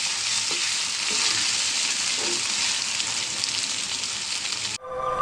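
Battered ridge gourd pieces frying in a small pot of hot oil: a steady sizzling hiss that cuts off suddenly near the end.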